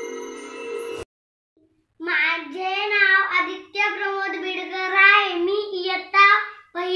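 Chime-like intro music that cuts off abruptly about a second in, then after a second of silence a young boy's voice in long phrases whose pitch rises and falls.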